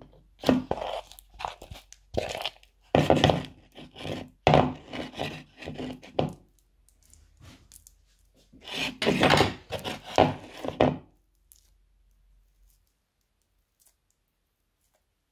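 A spoon stirring and scraping a sticky mouse-glue slime mixture around a plastic bowl in uneven strokes, then hands squishing and pulling the sticky mass about nine seconds in.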